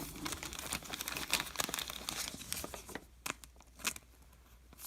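Crinkling and rustling of a baseball card pack wrapper being handled, dense for about three seconds, then a few separate sharp clicks of cards being handled.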